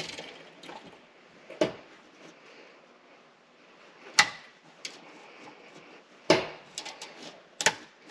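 Sharp clicks and knocks of hard parts being handled and fitted together, four loud ones a second or two apart with lighter ticks between, as the top and bottom halves of the fuel pump module are put back together.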